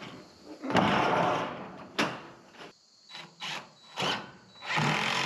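Ribbed steel roofing panel being slid and pushed into place on a roof frame: scraping and rattling of the sheet metal, with a long scrape about a second in, a sharp clank about two seconds in, and several short scrapes and bumps after.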